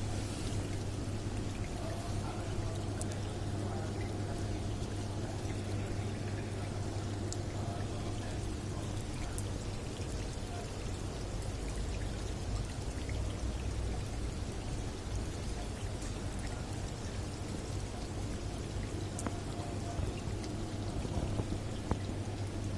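Heavy rain falling steadily, with scattered sharp drop ticks over an even rush and a steady low hum underneath.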